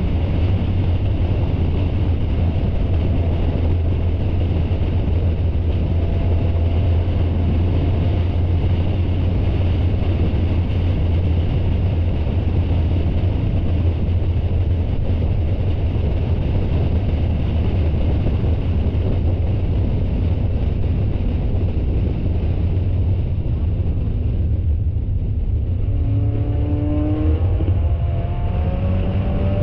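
Spec Miata race car's four-cylinder engine heard from inside the car, a steady loud low drone mixed with wind and road noise. Near the end the engine note climbs in a few short rises as the car accelerates.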